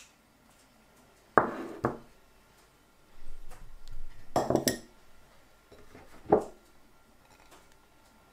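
Ceramic crockery knocking and clinking on a wooden table. A small stoneware ramekin is set down with two clunks, a cluster of clattering follows, and a plate is picked up with one more knock.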